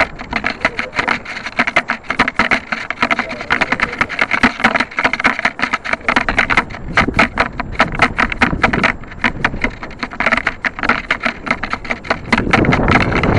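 Wind buffeting the microphone of a small keychain camera strapped to the side of a model rocket as it descends under its parachute: a rapid, irregular crackling and rushing that keeps swelling and dropping.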